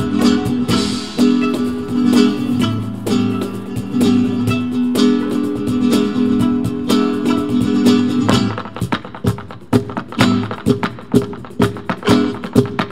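Flamenco-style crossover music with acoustic guitar and a sustained melody line over it. From about eight seconds in, the held notes drop away and sharp percussive strikes take over in a quick rhythm.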